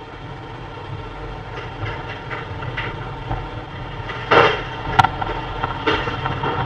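Tornado wind roaring around a house in a steady low rumble like a train, with sharp bangs of debris striking about four and five seconds in.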